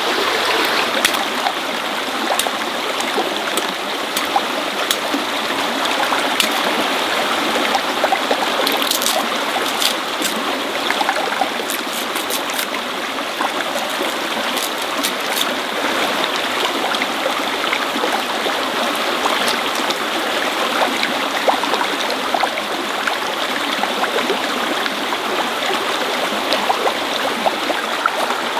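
Running water rushing steadily, with scattered light ticks.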